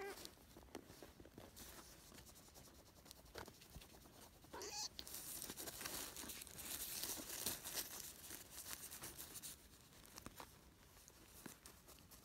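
Faint rustling of bedding as a kitten wriggles and is played with, with one short cat mew about four and a half seconds in.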